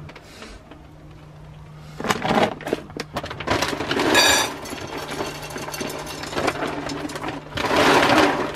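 A large plastic dog-food bag crinkling and rustling as it is handled, with dry kibble poured rattling into a metal dog bowl. The rustling starts about two seconds in, with the loudest burst near the end.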